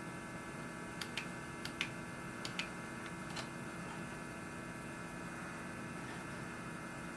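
Steady electrical hum with a handful of sharp clicks in the first few seconds, as the front-panel switches and knobs of a vintage digital oscilloscope are worked.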